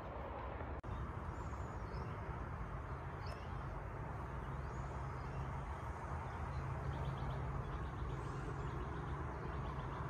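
Steady outdoor background rumble with faint, high bird chirps now and then.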